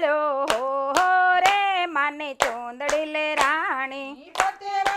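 Women's voices singing a Gujarati garba devotional song together, with hand claps keeping time about twice a second. The singing drops away briefly about four seconds in while the claps carry on.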